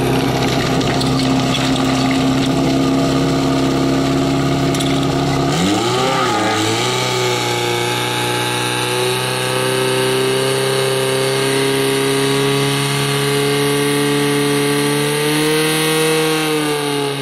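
Portable fire pump engine running hard throughout. About six seconds in its pitch wavers and shifts, then it holds a steady note while it drives water through the hoses to the nozzles, sagging slightly near the end.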